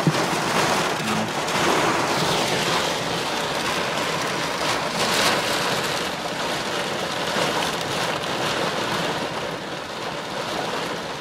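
Heavy rain pelting a car's roof and windows in a severe thunderstorm, heard from inside the cabin as a steady rushing hiss that swells a little about five seconds in.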